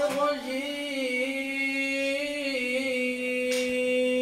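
A man's voice chanting Quranic verses into a handheld microphone in the Moroccan Filali recitation style, with the melody winding through ornamented turns and then settling into one long held note about halfway through.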